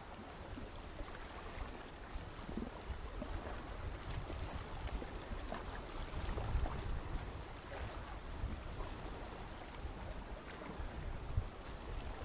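Calm sea lapping and sloshing gently against the rocks at the water's edge, steady with small uneven swells.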